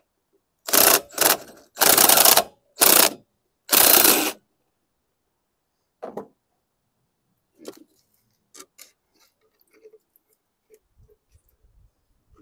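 Cordless drill with a socket spinning out the 10 mm fuel-tank mounting bolts on a mower engine, in five short runs in quick succession. Light clicks and knocks follow as the plastic tank is worked loose.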